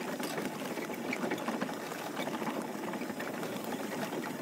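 Steady rattling buzz of a small vehicle being ridden over bumpy pavement.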